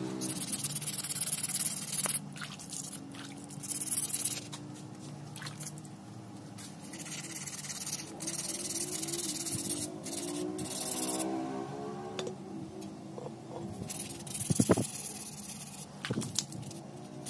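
Wet sanding a motorcycle exhaust header pipe by hand with P220 silicon-carbide wet/dry sandpaper: rasping scrapes of paper on metal in spells of a second or two, several times over. Near the end, water splashes as the hand dips into a bucket.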